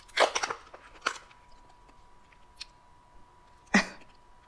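Plastic cap of a spice jar being twisted and pried open: a quick run of crackling clicks about a quarter second in and another click about a second in. A short vocal noise follows near the end.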